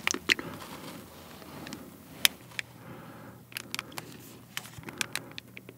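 A plastic squeeze bottle of mayonnaise being squeezed out onto chicken: a run of sharp little clicks and pops from the bottle and nozzle, the loudest a little over two seconds in.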